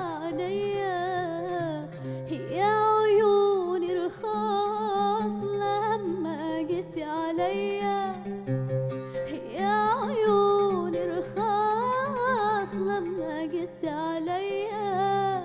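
A woman singing an Arabic song in an ornamented style, her voice sliding and bending through long held notes, with an oud plucked beneath her.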